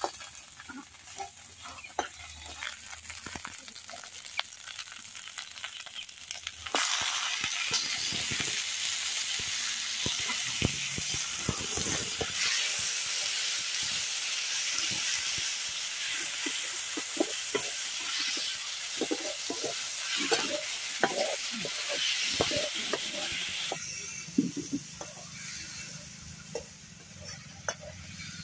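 Mutton pieces sizzling in a hot metal kadai while a flat metal spatula stirs and scrapes them, with frequent clicks and scrapes of metal on metal. The sizzle grows much louder about a quarter of the way in and drops back well before the end.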